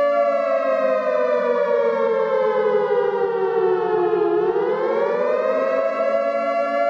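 Air-raid style siren wailing: a held tone that slides slowly down in pitch, then swings back up about four seconds in, over a lower steady drone.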